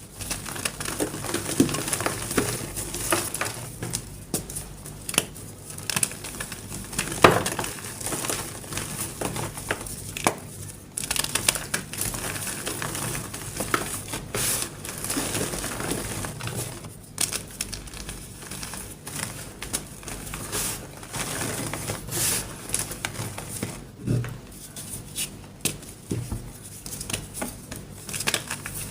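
A block of red-painted gym chalk being crushed, crunching and crumbling with many sharp crackles and one louder crack about seven seconds in.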